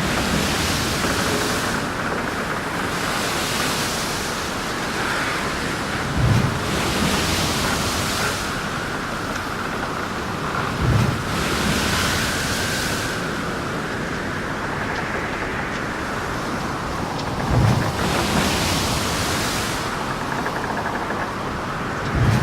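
Ship in heavy seas: a constant rushing of wind and water with recurring hissing surges, broken by four heavy low thumps several seconds apart as waves strike the hull.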